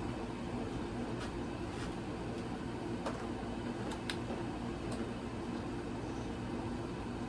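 Quorum Pinwheel ceiling fan running steadily with a motor hum, with a few faint ticks around the middle.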